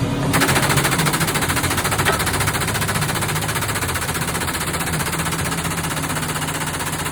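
Stick welding arc crackling steadily as a rod burns, struck about a third of a second in, over the steady hum of the welding machine.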